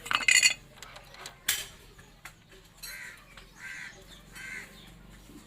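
Metal parts and tools clinking together for about half a second at the start, with a sharp click about a second and a half in. A bird then calls three times in the background.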